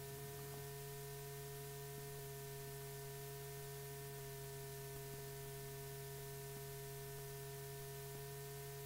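Steady electrical hum with a faint hiss from an old film soundtrack: several steady tones at once, the lowest the strongest.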